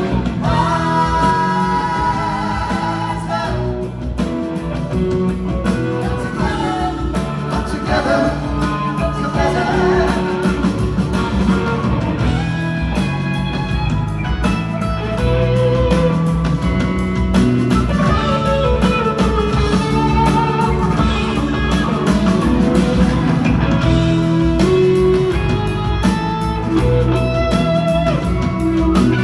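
Live rock band music recorded from the audience: electric guitar over bass and drums, with singing.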